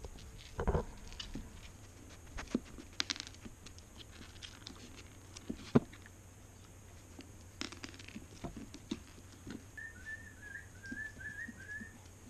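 Light, scattered clicks and taps of an Australian cattle dog puppy moving about on a wooden floor and eating kibble from a hand, with one sharper knock about halfway through. A short run of high chirps comes near the end.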